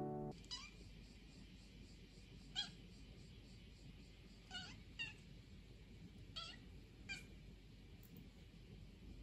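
A kitten mewing: about six short, high mews spaced a second or two apart.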